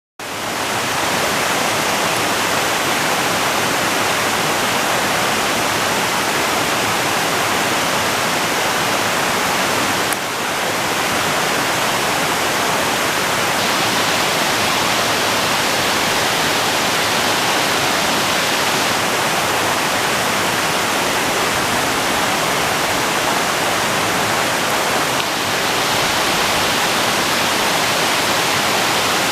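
Waterfall: falling water rushing in a steady, loud roar of noise.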